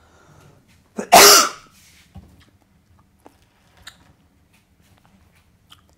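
A person sneezing once, loud and sudden, about a second in.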